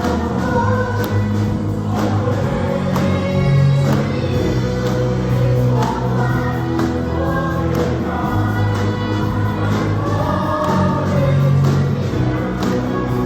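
Music: a choir singing a gospel or Christian hymn with instrumental accompaniment and a steady beat.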